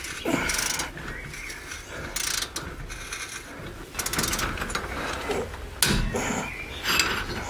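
Hand ratchet clicking in short runs every second or two as it backs out one of the rear wheel bearing's mounting bolts on a Jaguar X-Type, worked on a long extension through the hub flange.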